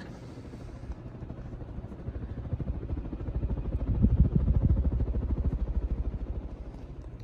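Air from a 52-inch Fasco Gulf Stream ceiling fan running on high speed, buffeting the microphone as a rapid low whooshing flutter. It swells to its loudest about four seconds in, then eases off.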